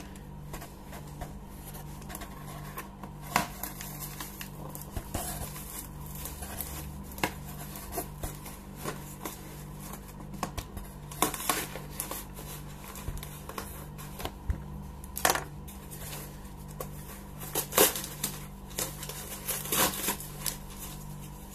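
A knife blade cutting and scraping through packing tape on a cardboard box: irregular scrapes and sharp clicks, a few louder ones spread through, over a steady low hum.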